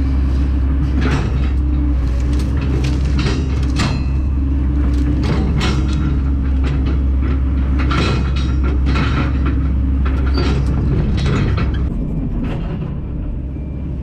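Kobelco SK210LC-9 excavator's diesel engine running under load as the machine works, with repeated knocks and clanks over it. The engine note drops about twelve seconds in.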